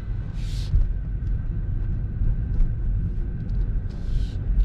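Low road and tyre rumble inside the cabin of a Tesla Model 3 driving slowly. Two short hisses, each about half a second long, come once near the start and once near the end.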